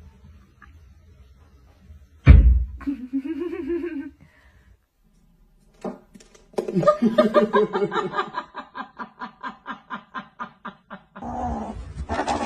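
A sharp thump about two seconds in, then a person laughing in a long run of quick, even ha-ha pulses, about four a second.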